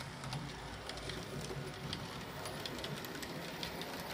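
Model train running past: the articulated model logging locomotive's electric motor humming low and steady, with light irregular clicking of wheels over the rail joints as it pulls its passenger coaches.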